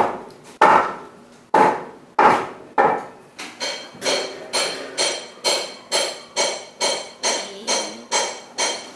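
Repeated knocks on a hard object, each ringing briefly: a few irregular strikes at first, then a steady beat of about two a second.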